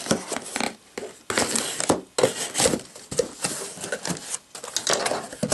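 A knife slitting the packing tape on a cardboard shipping box, then the cardboard flaps being pulled open over crumpled kraft packing paper, in a run of irregular scraping and rustling noises.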